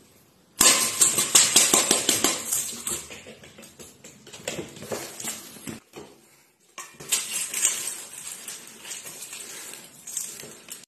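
Dry cat food clattering in a stainless steel bowl as the bowl is moved over a tile floor: dense rattling and clinking that starts suddenly about half a second in, fades, stops briefly near the middle, then comes back more softly.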